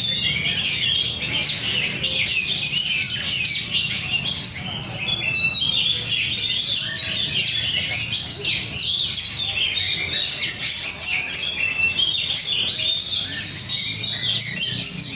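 Many caged songbirds singing at once during a songbird-contest judging session: a dense, unbroken chatter of overlapping chirps over a steady low hum.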